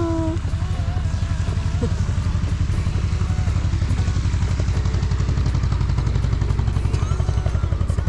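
Boat engine running steadily close by, a fast, even low throb.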